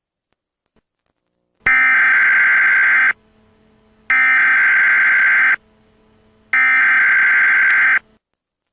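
Emergency Alert System SAME header: three loud bursts of screechy digital data, each about a second and a half long with a second's pause between them. It is the coded preamble that starts an emergency alert broadcast.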